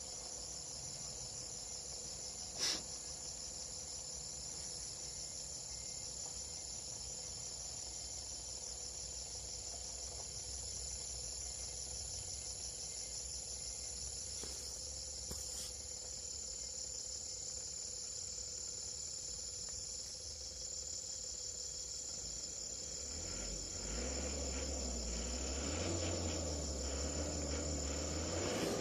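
Chorus of tropical forest insects making a steady, high-pitched trilling drone. A single sharp click comes about three seconds in, and a low rumble with a wavering pitch builds near the end.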